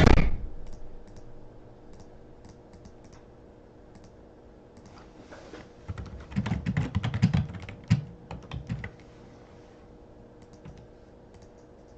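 Clicking and tapping like typing on a computer keyboard, in scattered runs with a busier stretch in the middle, after a single thump at the start.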